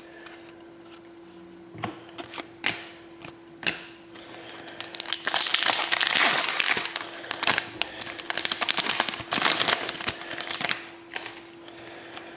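Hockey card pack wrapper crinkling as it is handled and torn open, with a few sharp clicks first, then dense crinkling for about six seconds from the middle on.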